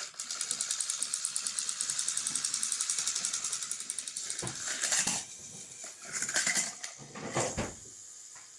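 Motorised plastic toy trains running on plastic track, their small battery motors and gears whirring with a fast, even pulse. About halfway the whir stops, and several clattering plastic knocks follow as the toy engines and cars tumble and are knocked about.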